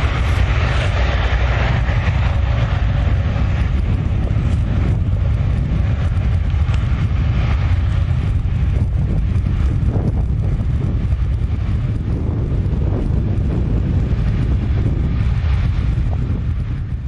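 Steady rush of an Airbus A220's Pratt & Whitney geared turbofans at taxi power, heavily overlaid by wind buffeting the microphone, which gives a deep, constant rumble.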